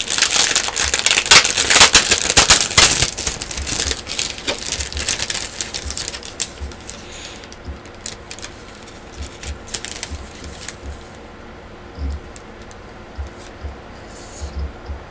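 Figure packaging being handled and unwrapped: a dense run of crinkling, crackling clicks for about the first six seconds, thinning to scattered clicks and taps.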